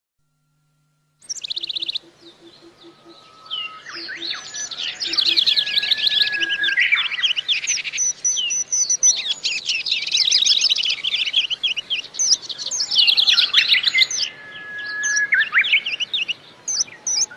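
Birds singing, with many quick high chirps and twitters overlapping densely. They start about a second in.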